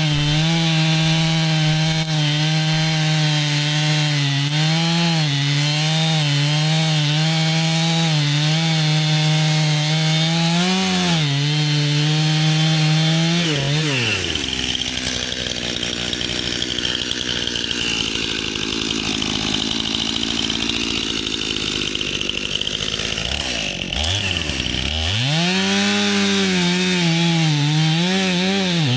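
Stihl two-stroke chainsaw cutting wood. It runs at steady high revs for about thirteen seconds, drops to a low, rough note for about ten seconds, then revs back up with brief dips.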